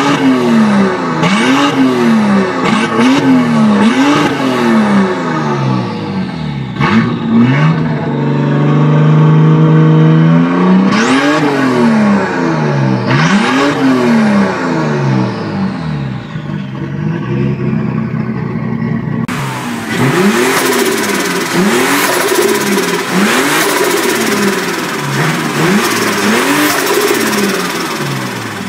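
Turbocharged RB30E+T 3.0-litre straight-six in a Nissan R31 wagon being revved in repeated blips, its pitch rising and falling every couple of seconds and held high for a couple of seconds a third of the way in, with a high whistle falling away after the blips. About two-thirds of the way through the sound turns sharper and hissier as the revving goes on.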